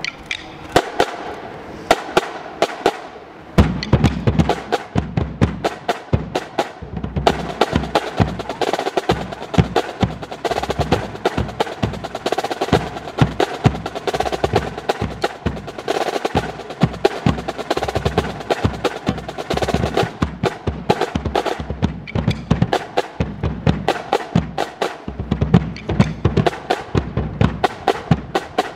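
Marching drumline playing: Pearl marching snare drums keep up a rapid, even pattern of stick strokes, alone for the first three and a half seconds. Then marching bass drums join with deep hits, dropping out and coming back a few times.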